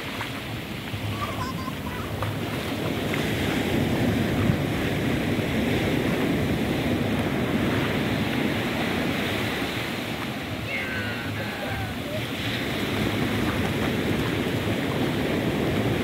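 Ocean surf breaking and washing up a sandy beach: a steady rush of foamy water that swells and eases as the waves come in.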